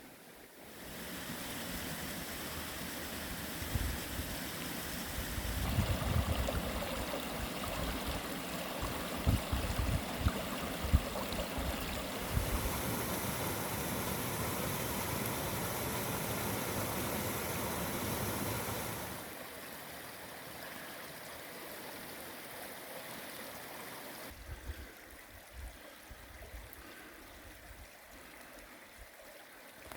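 Running water, a continuous rushing noise whose loudness and tone change abruptly several times, about every five to seven seconds.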